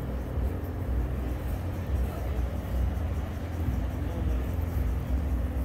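A steady low machine rumble with a constant hum, with no breaks or strikes.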